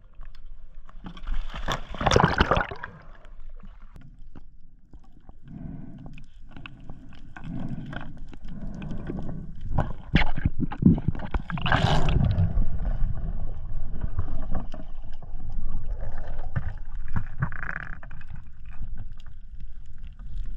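Water sounds heard through a camera going under the surface: a splash about two seconds in, then muffled underwater gurgling and bubbling with repeated low pulses.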